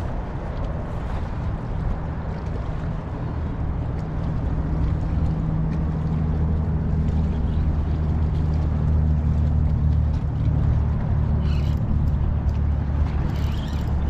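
Low, steady drone of a boat engine, growing louder a few seconds in and holding.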